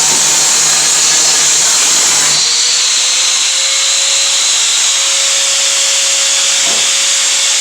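Large electric angle grinder running hard against rusty sheet steel, a loud steady hissing grind. About two and a half seconds in the low hum drops out and the sound thins to a steady whine with the hiss still going, as the disc's contact with the metal changes.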